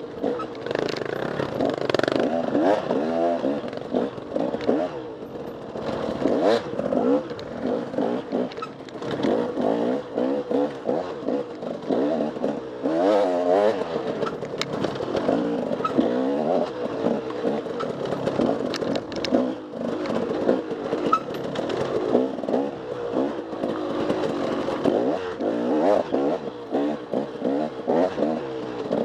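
Off-road dirt bike engine running hard, its revs rising and falling constantly as the throttle is worked, with some clatter mixed in.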